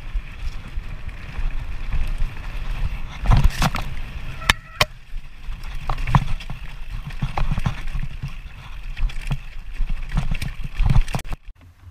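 Mountain bike rattling and jolting down a rough dirt and rock trail, with a steady rush of wind on the camera's microphone and many sharp knocks from bumps in the ground. It cuts off abruptly near the end.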